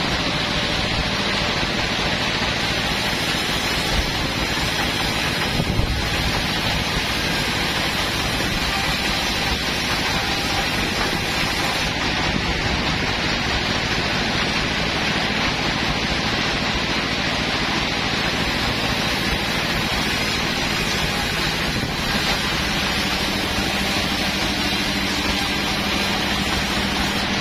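Steady running noise of sawmill machinery, with a brief knock about six seconds in.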